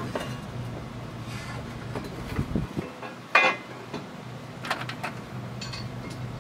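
Metal clinking and clanking as a cast-iron truck exhaust manifold is worked into place against a 5.3 LS V8 engine, with one louder clank about three and a half seconds in.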